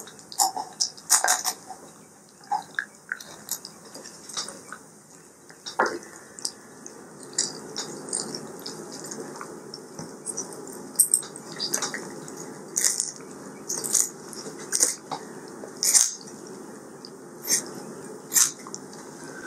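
Kitchen shears snipping through a raw chicken along its backbone, cutting through the rib bones: a series of short, sharp snips and clicks at irregular intervals, roughly one every second or so.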